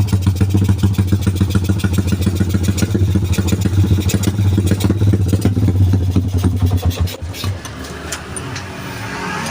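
Bored-up 177cc Yamaha Jupiter MX single-cylinder four-stroke engine running at a steady, choppy idle, with a helicopter-like chop in the exhaust pulses. The engine sound fades about seven seconds in.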